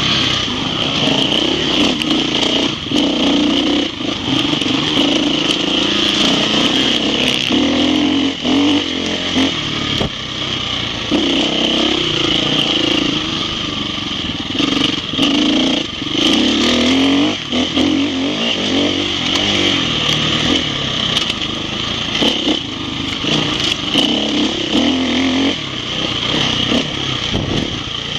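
Enduro motorcycle engine running under load on a dirt course, its pitch rising and falling with the throttle, with frequent short knocks from the bike over rough ground.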